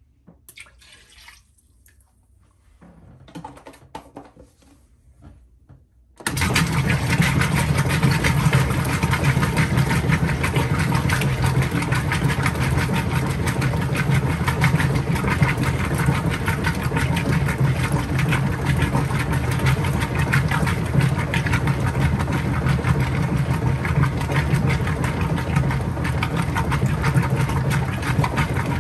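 Kenmore 80 Series top-load washing machine starting its rinse agitation: after a few faint knocks, the motor and agitator cut in abruptly about six seconds in and then run steadily, churning the water of the tub rinse.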